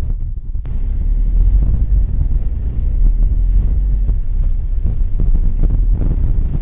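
Strong wind buffeting the microphone: a loud, steady low rumble that jumps up after a click about half a second in.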